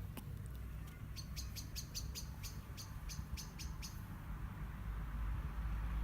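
A bird chirping: a quick run of about a dozen short, high chirps, roughly four a second, that stops near the middle, over a steady low background hum.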